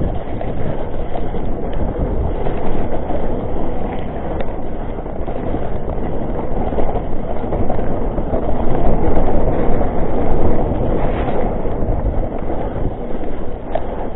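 Continuous rumble and clatter of a mountain bike riding down a rough trail, its tyres and frame rattling over the ground.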